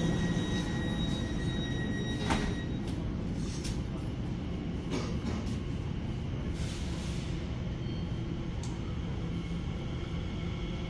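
Elizabeth Line Class 345 train running, a steady low rumble with a few short knocks, and a faint high steady tone that stops about three seconds in.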